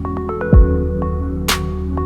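Electronic background music: steady synth chords with a deep kick drum about half a second in and a sharp snare hit about a second later.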